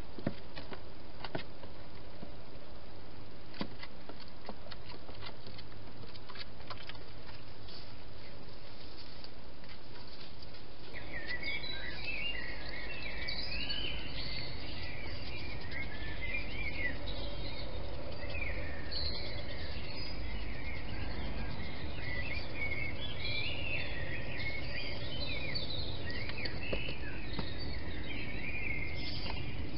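Steady microphone hiss with scattered faint clicks, then, about eleven seconds in, a dense chorus of many songbirds singing at once, a mass of short warbling chirps that carries on: the dawn chorus before sunrise.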